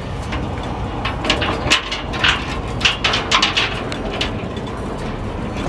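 Steel chain and boots clanking and rattling against a steel container chassis trailer frame as a man climbs the stacked trailers to hook a chain: a quick run of sharp metallic clanks, busiest in the middle, over a steady low rumble.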